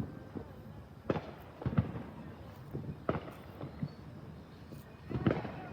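Fireworks going off: several sharp bangs and pops at irregular intervals.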